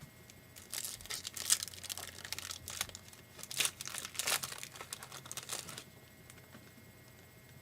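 Crinkling and tearing of a foil trading-card pack wrapper being ripped open and handled, about five seconds of dense crackle that stops near the end.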